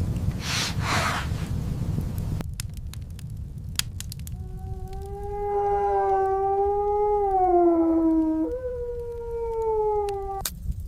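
A long canine howl: one held note with a slight downward slide and a small break in pitch near its end, stopping suddenly. Beneath it a low steady rumble of wind, with two short rushes of wind hiss in the first second.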